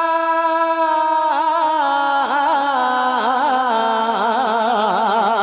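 A man singing a naat into a microphone, unaccompanied. He holds one long steady note on the syllable 'baa', then about a second and a half in breaks into a wavering, ornamented run that steps down in pitch.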